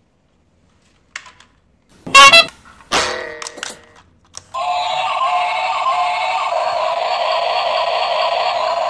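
Battery-operated toy train's electronic sound chip playing a tinny, warbling tune, starting about four and a half seconds in and running steadily once the toy is switched on. Before it, two short loud pitched sounds about two and three seconds in.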